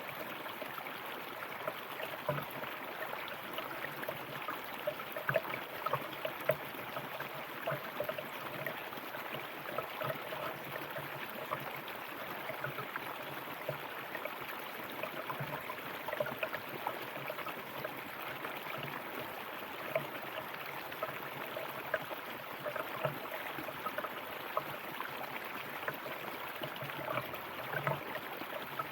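River water flowing and bubbling over rocks, a steady rush with many small gurgles and splashes.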